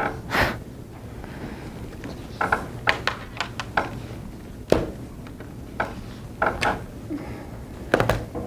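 A few short knocks and thuds in a quiet room, with brief faint sounds between them.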